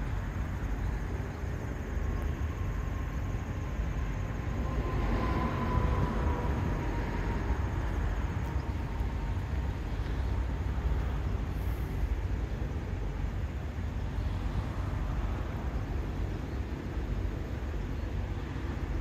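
Steady low rumble of distant truck and road traffic, swelling a little about five seconds in as a vehicle passes with a faint whine.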